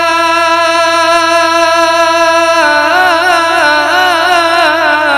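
Unaccompanied male voice singing a naat into a microphone. He holds one long steady note, then about two and a half seconds in drops slightly and breaks into a wavering, ornamented run.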